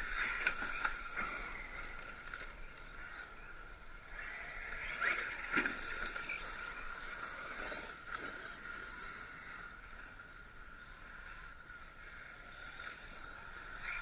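Electric radio-controlled car running over a forest dirt track: faint hissing tyre and drivetrain noise, with a steady thin whine and a brief louder burst about five seconds in.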